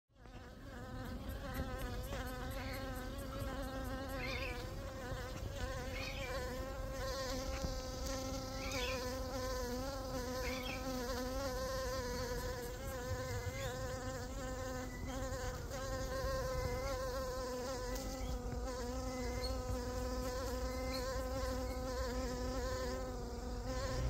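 A flying insect's wings buzzing close by: one continuous droning hum whose pitch wavers slightly, held throughout.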